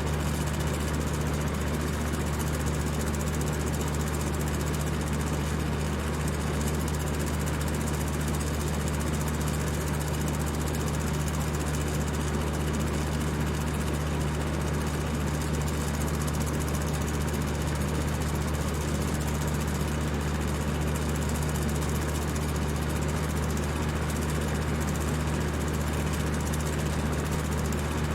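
High-speed electric fan running steadily: a constant low motor hum under an even whoosh of air.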